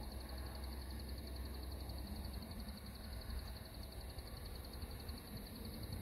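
Dusk outdoor ambience: a steady, high-pitched trill of rapid even pulses, like insects chirring, over a low rumble.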